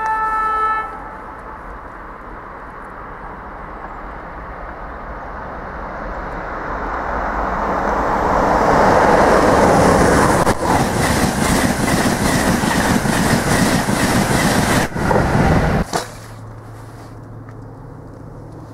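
A train horn gives one short blast, then a train comes closer and passes through, building to a loud rush of wheels and air that stops suddenly with a few seconds to go. The watcher takes it for an electric train.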